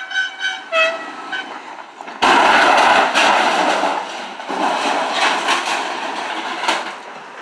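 A few short horn toots, then about two seconds in a truck hits a metal washing machine with a sudden loud crash. A second stretch of scraping and clattering metal follows a couple of seconds later and fades near the end.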